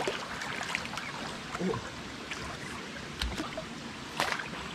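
Long-finned eel thrashing in a shallow rock pool, water splashing and sloshing irregularly over the steady wash of creek water, with a sharper, louder splash near the end.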